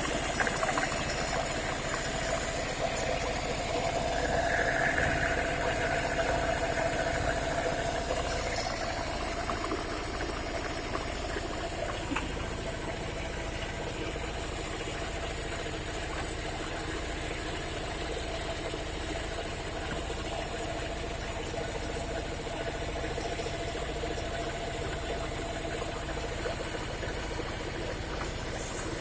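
Motor-driven corn grinding mill running steadily under load, milling dried corn into feed, with a steady low pulse from its engine. About four seconds in, a higher grinding tone swells for a few seconds, then eases.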